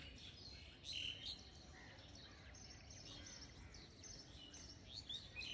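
Near silence with a faint background hiss and a few scattered faint bird chirps.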